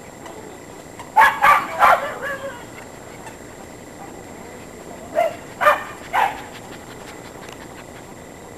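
Norfolk terrier barking in two quick runs of three short barks, the second run a few seconds after the first.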